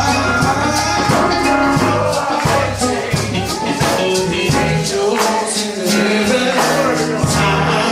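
Gospel music with singing over a band, with a shaker or tambourine keeping a steady beat.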